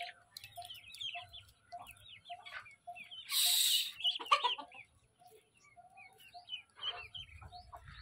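Young poultry calling: ducklings and chicks peeping in high, short chirps, with a short low cluck repeated about every half second. About three seconds in, a sudden loud rushing noise lasts about half a second, and a briefer one comes near the end.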